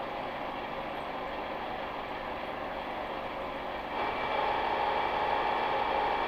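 Milling machine's angle head driving a drill bit into the end of a steel truck tie rod, boring a pilot hole: a steady running and cutting sound. About four seconds in it grows louder, with a steady ringing tone, as the drill cuts on toward full depth.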